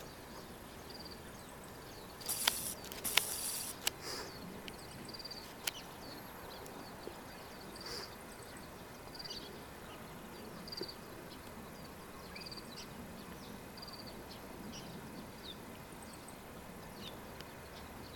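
Outdoor ambience with scattered short high chirps throughout. A few sharp clicks come about two to four seconds in and again near six seconds.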